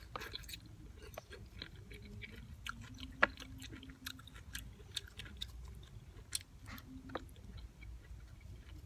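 A man chewing raw calamansi: quiet, wet clicking mouth sounds, with the sharpest click about three seconds in.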